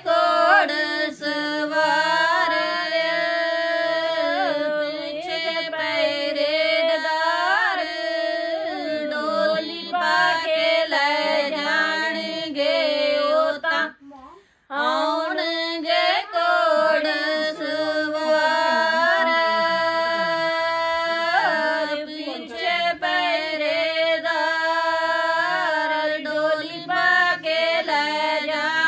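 Women singing a Punjabi suhag, a wedding folk song, in long held notes with gliding ornaments. There is a short pause about halfway through before the singing resumes.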